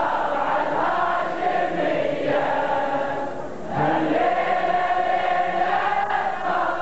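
A crowd of mourners chanting a Shia Ashura lament (latmiya) in unison, many voices holding long drawn-out lines, with a brief break about halfway through.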